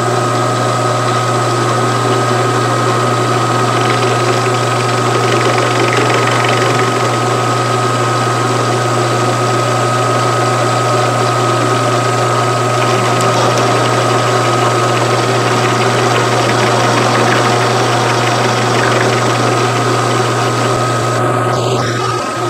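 Vertical milling machine running, its end mill working a metal workpiece clamped in the vise: a steady motor hum with a constant higher tone over a noisy machining sound.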